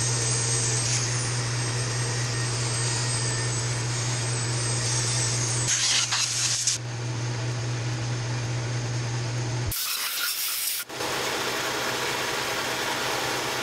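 Dremel rotary tool running at high speed against the engine's cylinder head, a steady whine over a low hum, cleaning off carbon. About six seconds in comes a brief blast of compressed air. The tool stops about ten seconds in, and a steady hiss follows.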